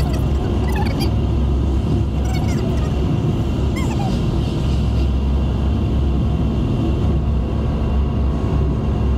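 Car driving along, heard from inside the cabin: a steady, even rumble of engine and road noise.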